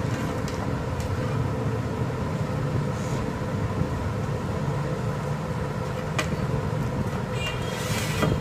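A steady low hum and rumble with a faint steady tone, and a few light clicks about six seconds in and near the end as a computer power supply's wiring harness is handled.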